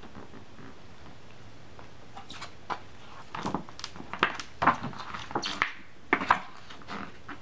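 Paper pages of a children's sound book being turned and pressed flat by hands in rubber gloves: a faint hiss at first, then from about two seconds in, an irregular run of sharp paper rustles and crackles.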